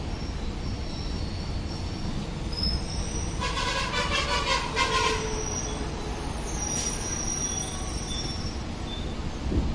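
Train running on the track with a steady low rumble, and a high metallic wheel squeal rising over it for a second or two about halfway through.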